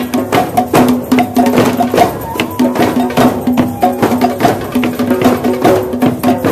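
Drum circle: many hand drums and frame drums, with a box drum, played together in a fast, steady rhythm.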